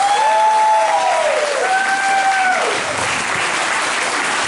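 Audience applauding steadily, with a few long, held calls rising and falling over the clapping in the first few seconds.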